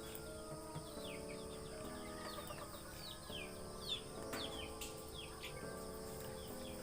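Quiet background music of held chords that change every second or so, with quick high falling chirps over it throughout.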